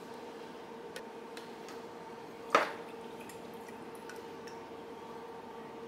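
Canned pineapple rings being taken from their juice and laid into melted butter and brown sugar in a cast iron skillet: small drips and ticks, and one brief louder sound about two and a half seconds in, over a steady faint hum.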